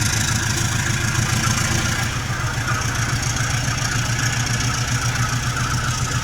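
Diesel locomotive engine running with a low, steady, pulsing throb as the special train sets off.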